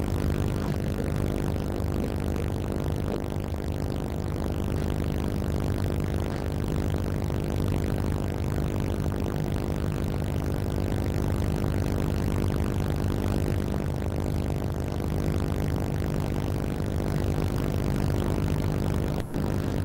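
Tugboat's diesel engine running steadily, a low even drone heard from on board, with a brief dropout near the end.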